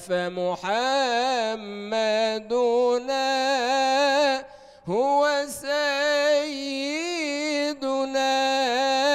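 A man's solo voice singing Islamic madih, a praise song for the Prophet, drawing the words out in long, wavering, ornamented notes. He breaks off for a breath about halfway through, then comes back in with a rising slide.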